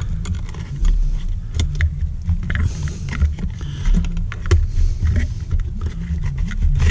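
Small irregular clicks, taps and scrapes of stiff copper wires and plastic wire nuts being folded and pushed back into an electrical box. A steady low rumble runs underneath.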